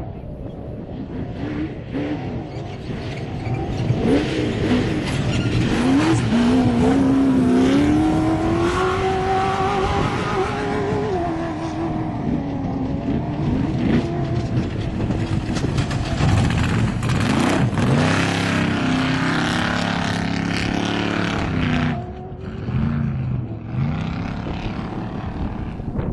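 Off-road race vehicle engine at high revs, going by at speed, its pitch climbing and dipping as it accelerates and shifts. The sound grows louder over the first few seconds and drops off sharply near the end.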